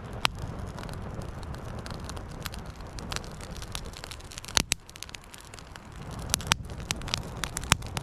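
Young campfire of birch and feather sticks crackling, with sharp irregular pops over a steady low rush of air being fed to the flames. The cracking is a good sign that the fire is going to stay going.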